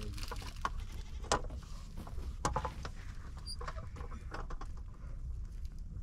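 Scattered sharp clicks and knocks of sticks and embers being worked at an open wood fire under an iron griddle, over a steady low rumble, with livestock bleating in the background.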